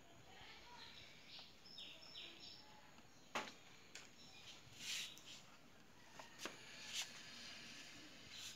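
Quiet background with a few faint bird chirps. Several sharp little clicks and a brief splash as a snake shifts about in a plastic bucket of water.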